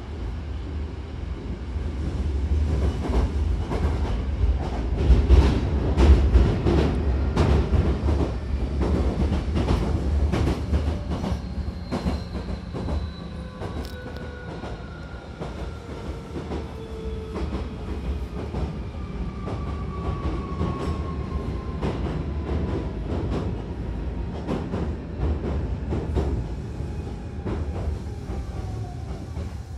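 Hankyu Kyoto Line electric train running, with a heavy low rumble and irregular clacks of the wheels over rail joints. Over the second half, a faint motor whine falls slowly in pitch as the train slows.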